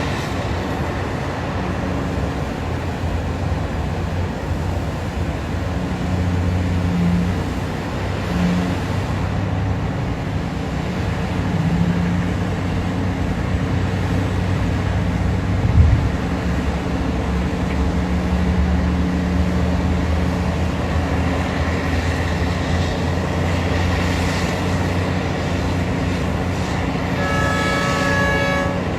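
Heavy mining excavator's diesel engine running steadily, with one sharp knock about halfway through and a brief pitched tone near the end.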